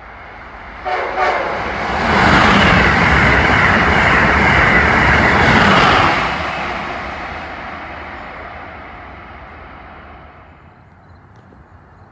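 Amtrak Acela Express high-speed electric trainset passing close by at speed: a loud rush of wheels and air that lasts about four seconds, then fades away over the next few seconds as the train recedes.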